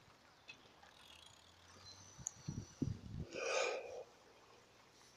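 Mostly quiet, with a few dull thumps past the middle and then a short rustling burst, from the bicycle and its handheld or mounted camera being jostled as the bike moves off.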